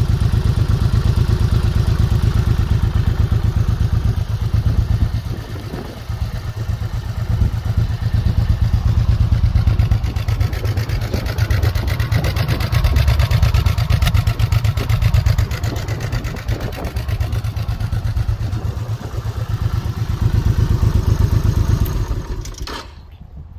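Honda VTX 1800's big V-twin engine running, its exhaust giving a low, evenly pulsing beat that swells and eases a few times. The engine sound cuts off about a second before the end.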